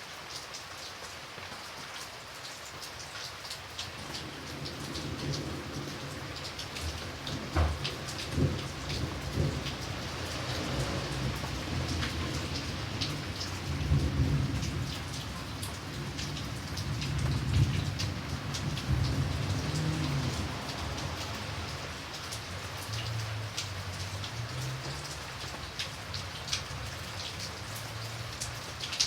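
Steady rain with scattered drops ticking close by. A roll of thunder rumbles in about four seconds in, swells several times and dies away near the end.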